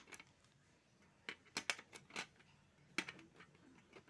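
Pencils being set down into a metal pencil box: a series of sharp, separate clicks and taps against the tin.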